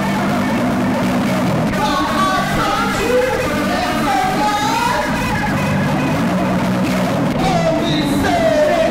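Funk-rock song with bass guitar and guitar, a melodic line gliding up and down over a steady groove.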